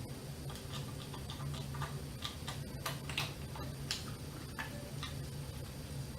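Irregular small metal clicks and ticks of an Allen key being turned by hand in a tight screw, over a steady low hum.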